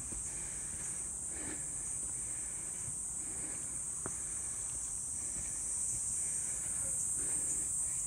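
A steady, high-pitched drone of insects in summer woodland, with slow footsteps on a forest path, a soft step about every two seconds.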